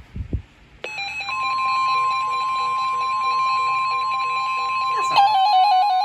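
Weather radio alarms going off for a severe thunderstorm warning. About a second in, a radio's steady alert tone starts, and the NOAA Weather Radio warning alarm, a steady 1050 Hz tone, joins it. About five seconds in, a louder warbling alarm from another radio comes in on top. A few soft handling thumps come just before the alarms.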